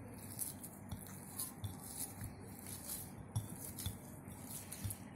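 Hand kneading soft dough in a cut-glass bowl: irregular knocks and clinks of hand and dough pressing against the glass.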